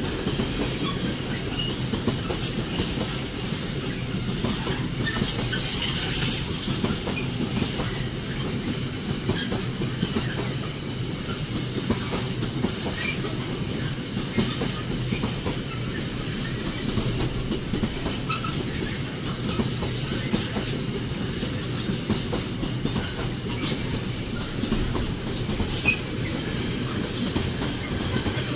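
Freight train's container flat wagons rolling past close by: a steady rumble of wheels on rail, with repeated clicks of wheels over rail joints.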